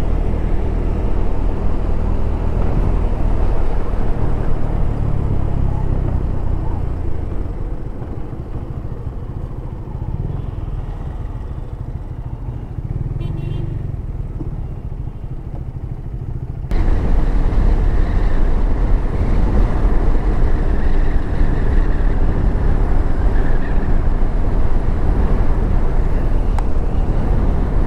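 KTM 390 Adventure's single-cylinder engine running under way, with wind rushing over the helmet camera. It drops to a quieter idle in traffic for several seconds, then cuts abruptly back to riding at speed with louder wind noise.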